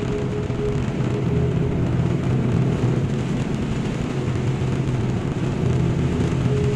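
Steady cab noise of a semi-truck driving at highway speed in heavy rain: a low engine drone with a steady hum over it, and the hiss of tyres on the wet road and rain on the windshield.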